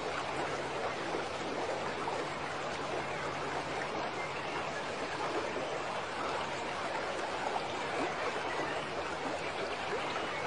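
Steady rushing of water, an even noise with no separate splashes standing out.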